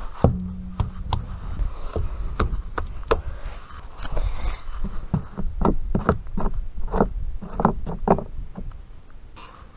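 Irregular clicks, knocks and scrapes from a plastic oil drain pan and a socket ratchet being handled on grass, over a low rumble of movement. There is a brief low hum about a second in.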